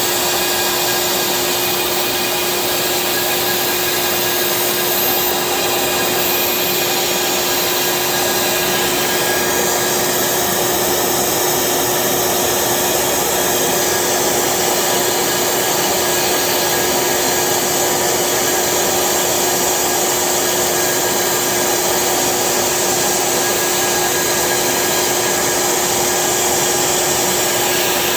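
CNC machine running steadily: a constant spindle hum holding one pitch over a loud, even rushing noise, with no change in speed.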